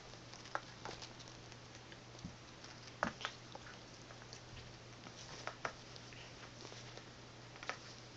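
Faint scattered clicks and scratches of cats' claws and paws on a tile floor and mat as two cats roll and paw at a small toy, a few sharper taps among them, over a low steady hum.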